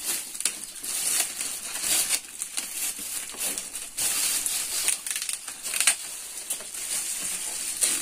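Gift wrapping paper and plastic packaging rustling and crinkling as presents are unwrapped by hand, in irregular crackles.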